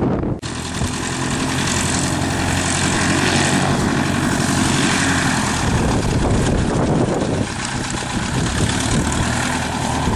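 1946 Piper J-3 Cub's engine and propeller running steadily, cutting in abruptly about half a second in after a moment of wind noise on the microphone; it eases slightly later on.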